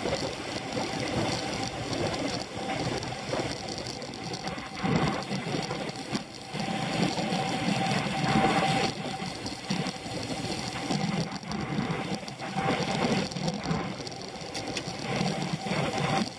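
Riding noise of a Scott Foil road bike in a criterium, picked up through a handlebar-mounted camera: continuous rattling and whirring from the bike and the road, dense with small clicks, over a faint steady whine.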